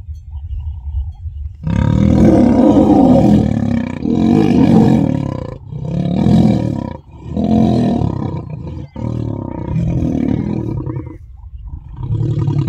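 Male African lions snarling and roaring at each other in a fight, in about six loud, rough bouts after a quiet first second or two. It is a dominance fight between brother males over a lioness in oestrus.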